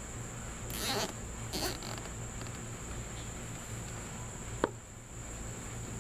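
Plastic zip ties being pulled tight through their ratchets, two short rasps, then a single sharp click as one is cinched or snipped, while they fasten a cracked plastic fan shroud back together.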